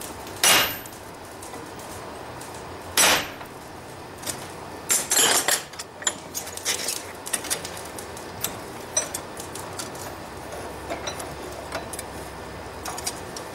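Hammer striking a handled top tool on a hot railroad spike over the anvil, spreading the forged ears apart: about four sharp, ringing metal blows in the first six seconds, then a scatter of lighter metal clinks and taps.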